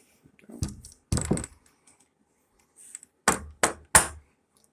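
Clunks and knocks of barn door hardware being handled and fitted by hand: a few clunks in the first second and a half, then three sharp knocks in quick succession near the end.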